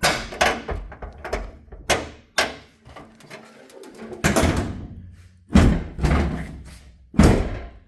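Clunks and thuds of a Triumph TR250's hood being closed. There are several lighter knocks in the first half, then three heavier thuds about four, five and a half and seven seconds in.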